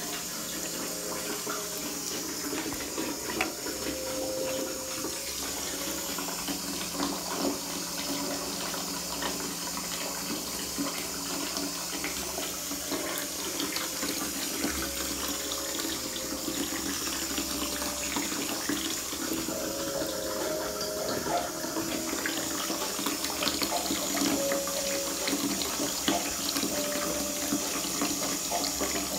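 Water running steadily, like a tap into a basin, with small splashes and ticks throughout.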